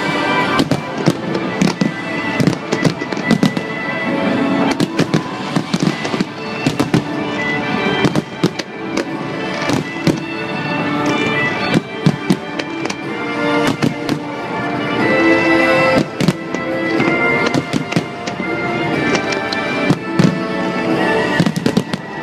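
Aerial firework shells bursting in a dense, irregular string of sharp bangs and crackles, with music playing along.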